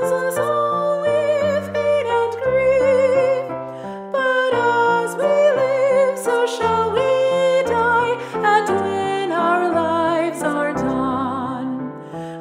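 Slow hymn sung by a voice with a wide vibrato over sustained keyboard chords and a moving bass line.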